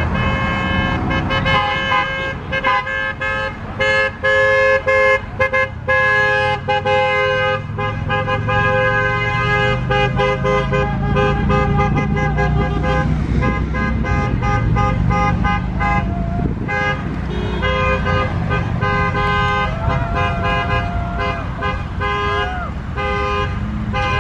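Vehicle horns honking over and over, several sounding at once in long and short blasts, as a line of pickup trucks drives past. The trucks' engines run underneath.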